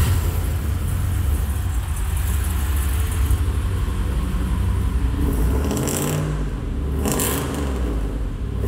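LS V8 engine in a Mercedes-Benz 124-chassis sedan idling just after being started, a steady low exhaust rumble with a slight rise and fall in the idle about two-thirds of the way in.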